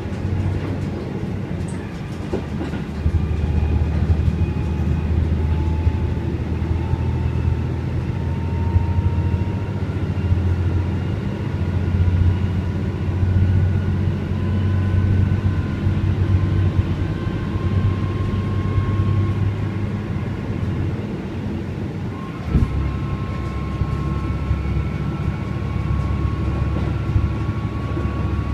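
Cabin sound of a JR Central KiHa 11 diesel railcar under way: a steady low engine drone with thin whining tones that rise slowly in pitch as it picks up speed. About 22 seconds in there is a short knock and the whine steps to a new pitch, then keeps climbing.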